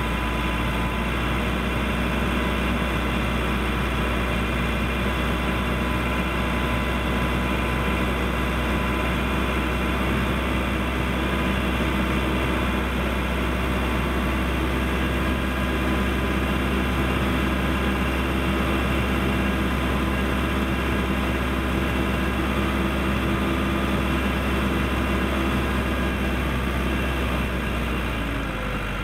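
Case 580L backhoe's turbo diesel engine running steadily, its pitch easing down slightly near the end.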